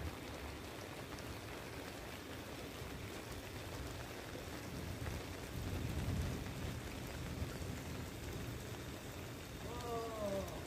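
Steady water noise with a rain-like patter. A short falling call is heard just before the end.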